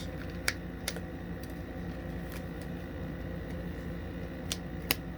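A few sharp clicks, twice early and twice near the end, as a small parts package is taken apart by hand, over a steady low hum.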